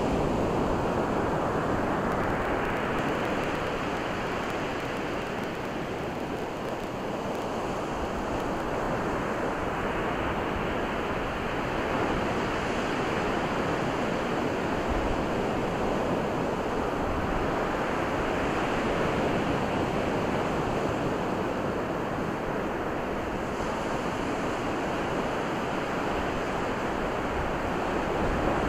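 Ocean surf washing on a sandy beach: a steady rush of breaking waves that swells and eases slowly every several seconds.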